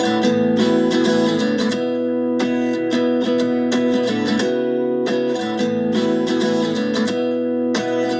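Acoustic guitar strumming a steady, rhythmic chord pattern as the intro of a pop song, played loud through a portable Bluetooth speaker.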